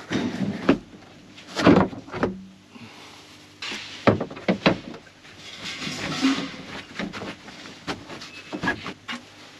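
Combine cab's overhead air filter being slid and pushed in its headliner slot: a series of sharp knocks and clicks of the filter frame against the housing, with scraping and rustling between them.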